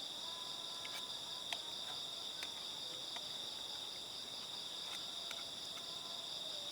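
A steady, high-pitched chorus of night insects chirring without a break, with a few faint sharp clicks scattered through it, the clearest about one and a half seconds in.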